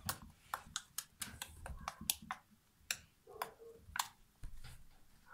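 Freshly made fluffy slime of clear glue, shaving foam and boric acid being kneaded and pressed by hand on a tabletop, giving irregular sharp clicks and pops, a few a second.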